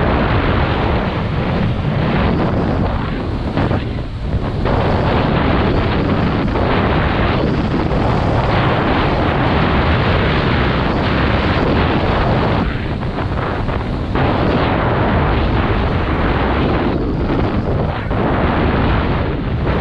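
Wind rushing over the microphone of a skier going downhill at speed. It is loud and steady, dipping briefly a few times.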